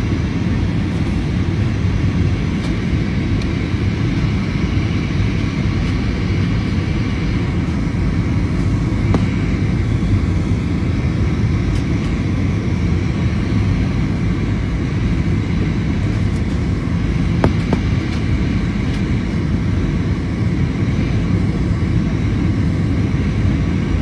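Steady drone of an airliner's engines and rushing air, heard inside the passenger cabin, with a faint high whine held throughout.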